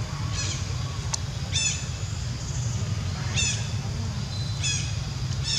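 Short, high-pitched animal calls, about five of them, repeated every one to two seconds over a steady low hum.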